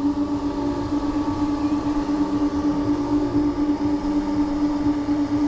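Steady mechanical hum of a flat ride's drive machinery heard on board, one constant pitch with fainter overtones, over a low rumble.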